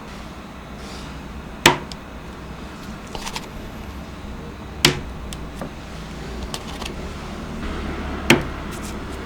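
Three sharp clicks, about three seconds apart, with a few fainter ticks between them: utensils or cookie pieces knocking on a baking tray or bowl, over a low steady hum.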